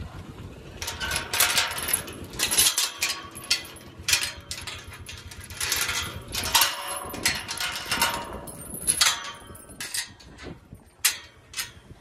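Rusty steel chain rattling and clanking against a metal tube livestock gate as the gate chain is worked loose, a busy run of clinks and knocks for most of the stretch, then a few separate clicks near the end.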